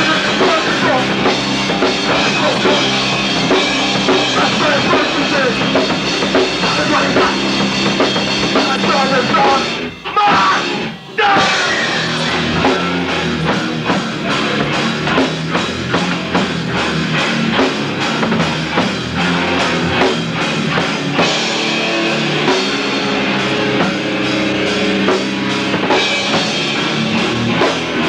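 Heavy rock band playing live and loud: drum kit with crashing cymbals and electric guitar. The sound drops out briefly twice about ten seconds in, then carries on.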